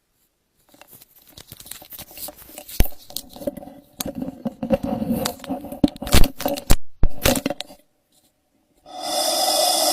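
Irregular crinkling and crackling noise with many sharp clicks, like something being torn or crumpled. It stops, and a loud, steady, hissing noise starts suddenly near the end.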